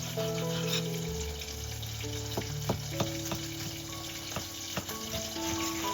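Food sizzling in a hot pan, with several sharp clicks of a utensil against the pan as it is stirred, over soft background music.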